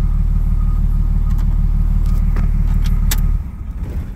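Dodge Ram 3500's 5.9 L Cummins inline-six turbodiesel idling steadily, then shut off about three and a half seconds in and running down; a couple of sharp clicks from the key follow near the end.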